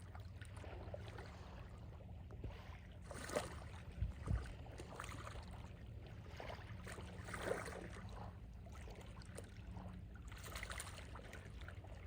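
Small, gentle sea waves lapping on the shore, each swell of water washing in every few seconds over a steady low rumble. Two short low thumps come about four seconds in.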